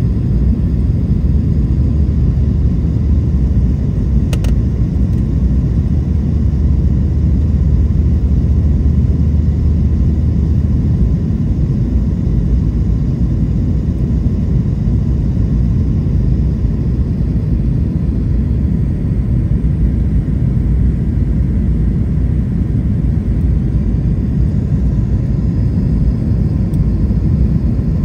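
Steady low rumble of a jet airliner's cabin noise heard from a window seat: engine and airflow noise. Its deepest hum shifts a little after about eleven seconds, and there is one faint click about four seconds in.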